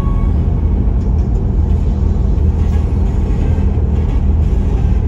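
Steady low rumble of a car driving on a city street: engine and tyre noise heard from inside the cabin.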